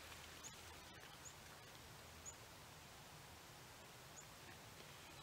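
Near silence, with four faint, short, high bird chirps spread irregularly through the quiet.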